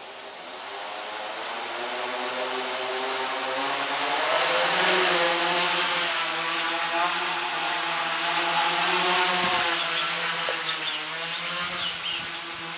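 Three DT750 brushless motors turning 10x4.7 propellers on a large tricopter spin up and lift it off, then keep up a steady propeller buzz whose pitch wavers up and down as the motors keep adjusting. The buzz grows louder over the first few seconds and eases off near the end.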